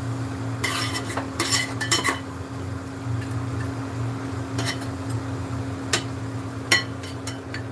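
A metal spoon or spatula scraping and clinking against a cooking pot as food is stirred, in irregular strokes, several close together in the first two seconds and then single clinks spaced out. A steady low hum runs underneath.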